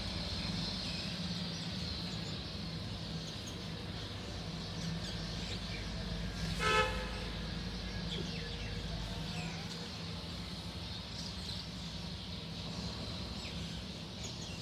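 Steady low hum of city background noise, with one short horn-like toot about six and a half seconds in.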